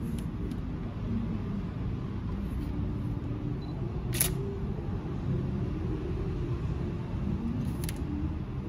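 Camera shutter firing a few times: faint clicks near the start, then two sharper clicks about four and eight seconds in, the first of those the loudest, over a steady low rumble.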